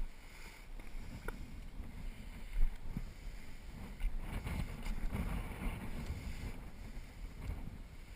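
Wind buffeting the microphone in a low rumble, with a brief louder thump about two and a half seconds in.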